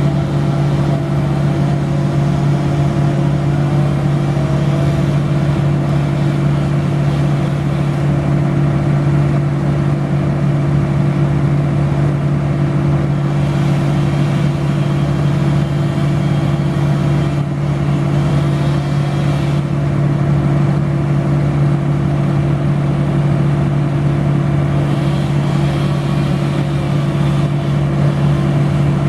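A large engine running steadily at a constant speed, with a strong, even hum and no change in pitch.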